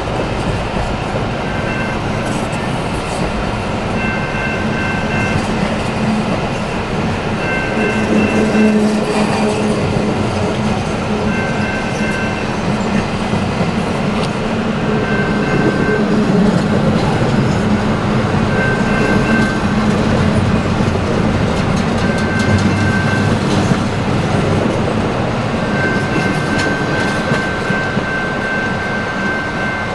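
Double-stack intermodal freight cars rolling steadily past: a continuous rumble of steel wheels on rail with rhythmic clickety-clack over the joints. A level-crossing warning bell rings in the background, fading in and out.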